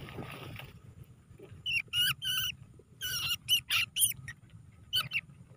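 Two field rats caught in a wire cage trap squeaking: short, high-pitched squeaks in three quick clusters, starting about two seconds in.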